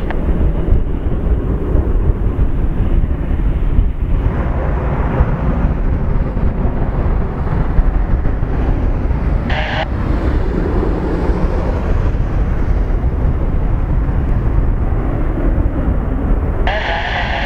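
Jet airliner's engines running as it taxis onto the runway, a steady loud rumble heavy in the low end. Two short bursts of radio static cut in, about ten seconds in and near the end.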